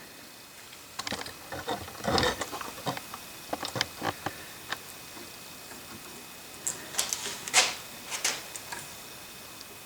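Irregular small clicks, taps and scrapes of hands handling parts inside a tube radio's cabinet while a dial-lamp bulb is swapped. The clicks come in two flurries, one through the first half and another about seven seconds in.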